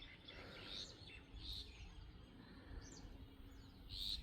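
Birds chirping: a few short, high chirps scattered through, over a faint low rumble of outdoor noise.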